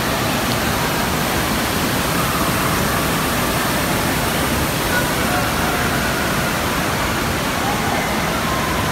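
Indoor waterpark din: a steady rush of moving water from the slides and pools, with distant voices and shouts mixed in.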